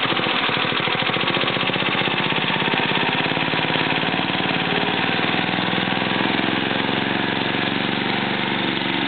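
Small gasoline engine of a remote-controlled lawn mower running steadily, just after starting, with an even, rapid firing beat.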